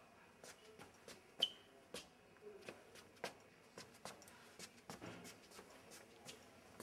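Faint, scattered clicks and taps at irregular intervals over quiet room tone, the sharpest about one and a half seconds in.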